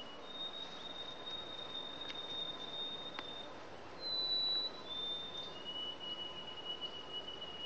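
Quiet outdoor ambience with insects trilling: thin, high, steady tones held for a few seconds each, shifting pitch a few times. A single sharp click comes about three seconds in.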